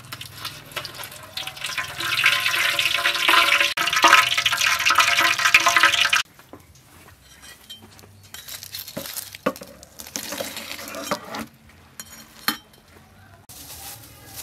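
Fish deep-frying in a wok of hot oil: a loud, dense sizzle that cuts off suddenly about six seconds in. After that come a few light taps and clinks.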